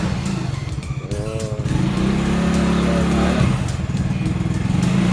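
Motorstar Easyride 150N scooter's single-cylinder engine revved with the throttle while the bike stands still. The pitch climbs from about two seconds in, eases off, and climbs again near the end. This is a test of acceleration after the CVT drive belt was set to ride higher in the torque drive.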